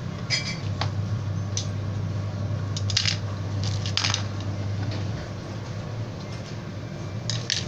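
Short sharp clicks and crinkles of objects being handled, about half a dozen of them at uneven intervals, over a low steady hum that fades out a little after halfway.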